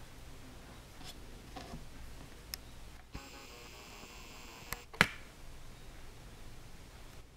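Camcorder zoom motor whirring for a second or two as the lens zooms in, followed by two sharp clicks, the second and louder one about five seconds in.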